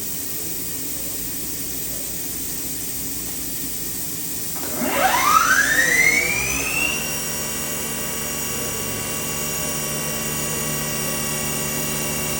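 Okuma MA-12500H horizontal machining center's spindle spinning up: over the machine's steady hum, a whine starts about four and a half seconds in and climbs quickly in pitch for about two seconds. It then holds as a steady high whine at speed.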